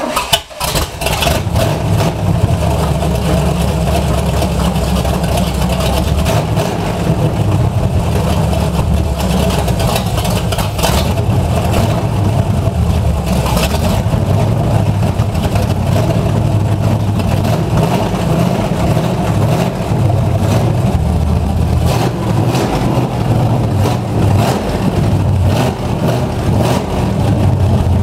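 Ford Falcon's V8 engine catching in the first second, then running, its revs rising and falling.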